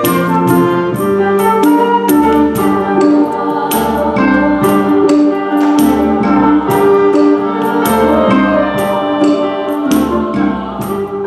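Symphony orchestra playing an instrumental passage: sustained melodic lines over low bass notes, with a steady beat of sharp percussion strikes.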